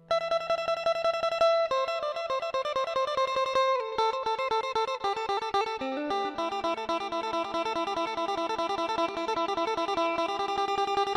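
Background music: a plucked guitar playing a quick run of repeated picked notes, the melody stepping down over the first few seconds.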